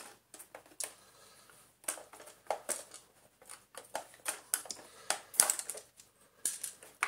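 Irregular clicks and clacks of plastic parts being handled and worked loose as a Shark Speed Lift-Away NV680 vacuum cleaner's housing is taken apart, with one sharper knock about five seconds in.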